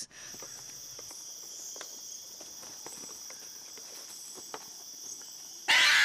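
Rainforest insect chorus, a steady high-pitched buzz with faint scattered ticks. Near the end a cockatoo's loud, harsh screech cuts in.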